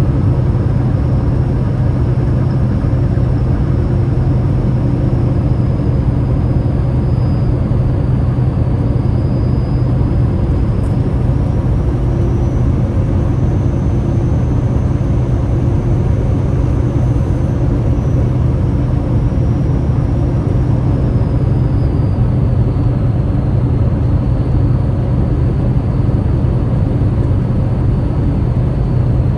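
Waterfall: falling water rushing in a steady, loud, deep roar with no breaks.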